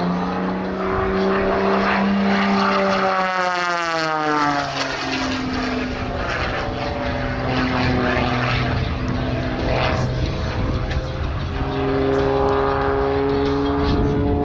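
Propeller-driven aerobatic airplanes flying past, with engine and propeller drone. One passes close with a sharp drop in pitch about three to five seconds in, and another engine tone comes up near the end.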